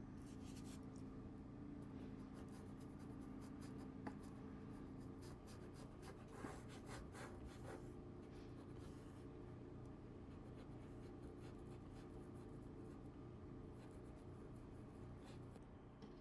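Paintbrush faintly scrubbing acrylic paint onto canvas in many short strokes, over a low steady room hum.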